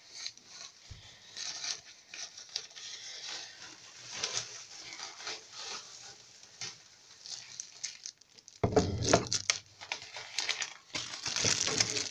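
Handling of packaging: plastic wrapping and a cardboard box rustle and crinkle as a camera tripod is taken out. A heavier bump comes about nine seconds in, and the plastic crinkling gets louder near the end.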